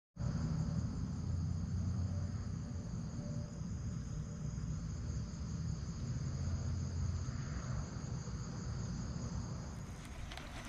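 Insects trilling steadily in a high, even pitch, over a low rumble. The trilling cuts off near the end.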